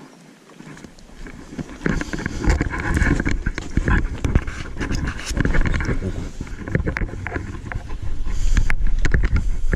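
Irregular knocks, thuds and rustling of people moving about a small boat and handling fishing rods and gear, with rumbling buffeting on the body-worn microphone. It starts about two seconds in and is loudest near the end.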